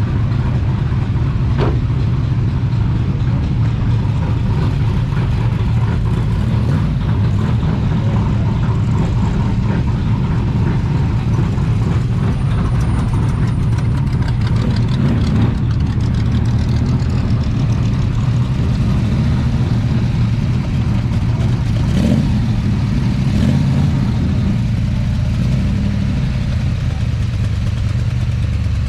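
Car engine idling, a low, steady drone that does not rise or fall, with two brief sharp clicks.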